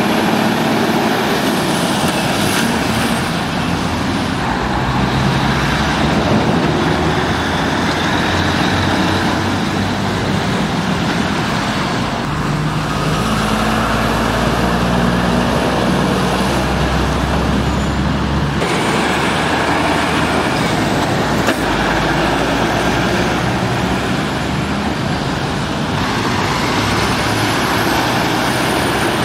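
Diesel engines of articulated lorries pulling round a roundabout one after another, over steady road-traffic noise. The engine note shifts as each truck passes, and the sound changes abruptly twice in the second half.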